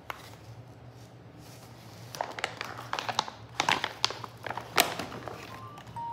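Large plastic fabric-softener refill pouches crinkling and knocking together as they are picked up and set down. The sharp rustles and clicks start about two seconds in.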